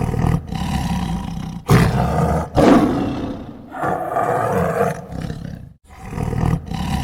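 Tiger roaring: a run of about five loud, rough roars, each a second or two long, with short breaks between them.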